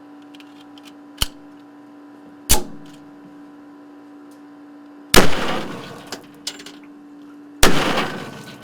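Gunshots over a steady hum: a small click, then a short sharp crack about two and a half seconds in, then two louder shots about two and a half seconds apart, each ringing on for about a second. The shots are test firings into a ballistics water tank.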